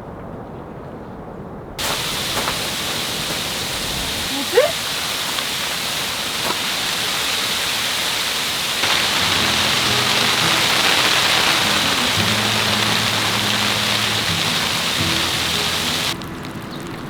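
Steady hiss of heavy rain that cuts in abruptly about two seconds in and stops abruptly near the end, with a short rising squeak just under halfway through. Soft background music comes in about halfway.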